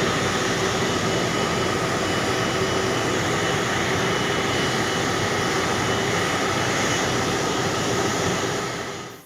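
Steady jet aircraft engine noise with a faint whine in it, fading out near the end.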